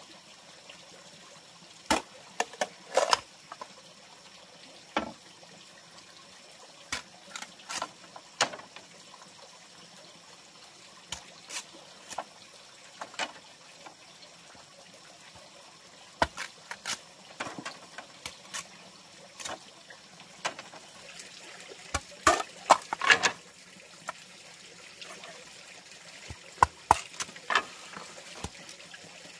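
Machete chopping and splitting a green bamboo culm: irregular sharp cracks and knocks, several in quick runs. A faint steady trickle of water underneath.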